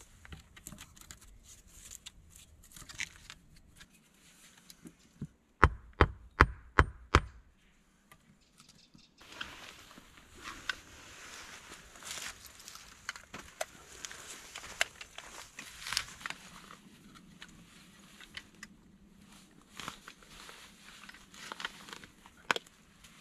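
Five loud, sharp knocks in quick succession about six seconds in. Then, from about nine seconds in, a small hand digging tool repeatedly chops and scrapes into damp soil and leaf litter, with crackles and small knocks.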